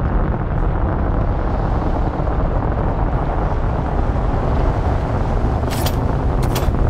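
A giant sandworm approaching under the sand in film sound design: a loud, steady low rumble of churning sand, with two short hissing bursts near the end.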